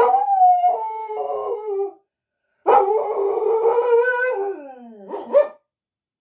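Black-and-tan local-breed dog howling with its muzzle raised: two long howls, the second sliding down in pitch near its end and closing with a short rising cry.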